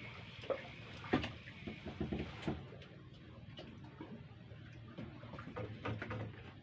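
Faint scattered clicks and knocks, busiest in the first half and sparser after about three seconds.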